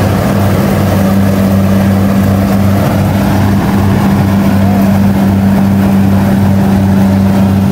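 Kubota DC-60 combine harvester running as it cuts ripe rice: a loud, steady drone from its diesel engine and threshing machinery.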